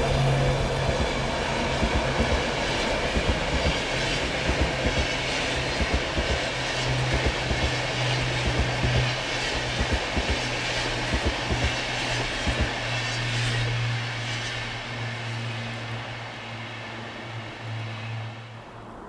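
Electric passenger train on the Arlberg line running past, a steady low hum under a run of sharp wheel clicks over the rail joints. The sound fades as the train moves away and dies out just before the end.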